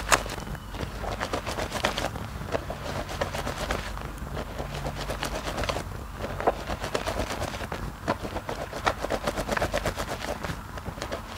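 Wet squishing and squelching of hands squeezing and kneading thick soap lather in a basin of soapy water, with a steady stream of quick crackles from the foam and a few louder squelches.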